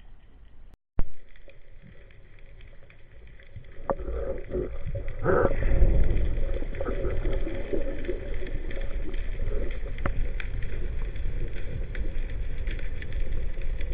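Small boat on the water. After a brief cut about a second in, a steady low rumbling noise sets in about four seconds in, with a few knocks.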